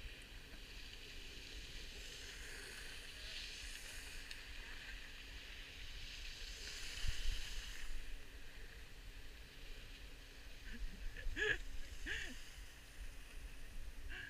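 Snow hissing and scraping under a rider sliding down a ski slope, swelling twice as the rider turns, a few seconds in and again midway. Two brief distant calls near the end.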